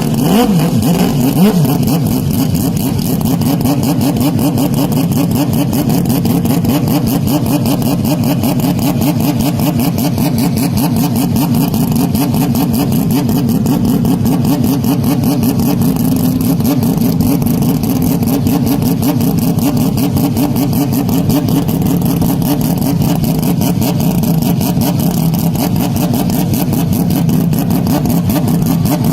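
Motocross bike engine running hard without a break, its revs rising and falling as it is worked through the track.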